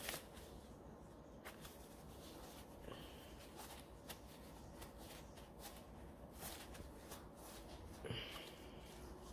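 Quiet room tone with a few scattered, faint clicks and rustles, the sound of small things being handled.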